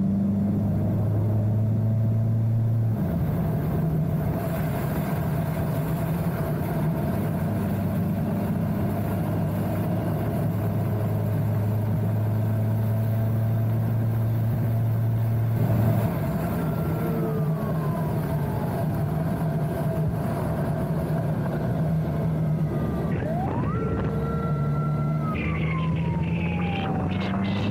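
Kawasaki GTR 1400's inline-four engine running at a steady cruise under wind rush, its note changing pitch a few times. From about halfway through, an escort motorcycle's siren wails faintly, rising and falling.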